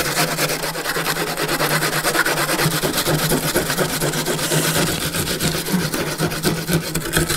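A small onion being grated by hand on the coarse side of a stainless steel box grater, rubbed up and down in quick repeated strokes as it turns to wet pulp.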